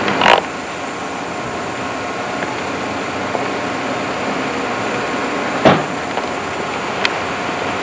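Steady noise of a moving vehicle heard from on board, with two sharp knocks, one just after the start and a louder one about two-thirds of the way through.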